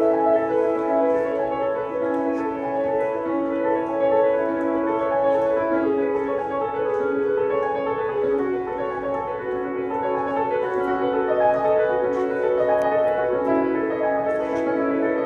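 Piano music with held, overlapping notes and chords.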